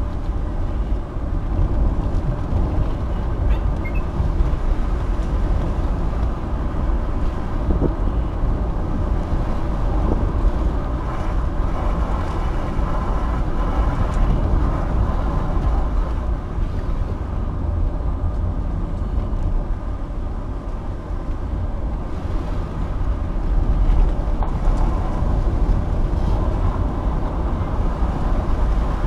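Car driving along a paved road, heard from inside the cabin: a steady low rumble of engine and tyre noise.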